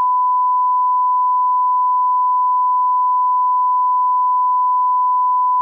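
Steady 1 kHz line-up reference tone that goes with colour test bars: a single pure, unwavering beep at one pitch.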